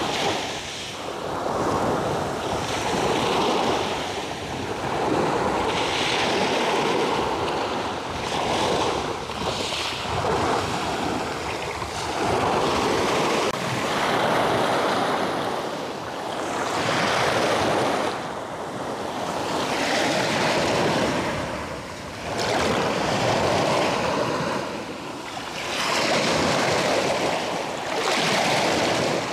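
Sea surf breaking and washing up a pebble beach, the rush of water swelling and falling back every two to three seconds.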